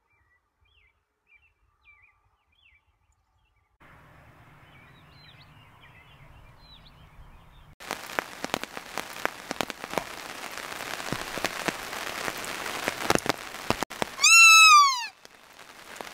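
A deer fawn stuck between the bars of a metal gate gives one loud, high distress bleat near the end, its pitch rising and then falling. Before it, rain patters steadily with scattered sharp clicks.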